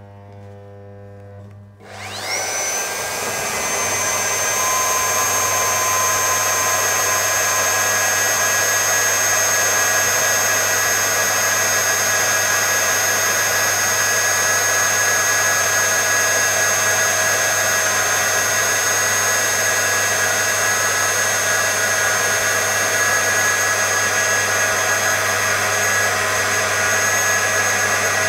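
Metabo MAG 50 magnetic core drill: a low hum from its freshly switched-on electromagnet, then about two seconds in the motor spins up and an annular core cutter bores steadily into steel plate, running with a steady high whine.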